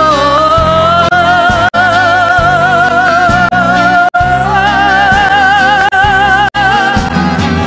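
Music from a Russian pop ballad: a wordless stretch of long held melody notes with a wide vibrato over a steady bass line, cutting out for an instant three times.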